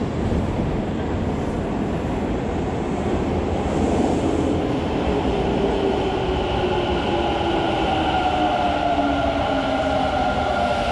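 Electric commuter train pulling into an underground station platform: a steady rumble of the train, with its motor whine gliding down in pitch over the last few seconds as it brakes.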